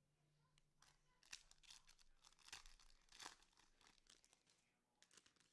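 Faint crinkling and tearing of a trading card pack's wrapper being ripped open: a run of quick rips through the middle and a couple more near the end.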